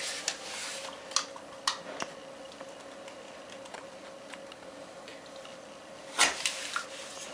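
A hand scraping and picking at the caulk bead around a porcelain toilet base, trying to start it peeling: scattered short scrapes and clicks, with a louder cluster about six seconds in.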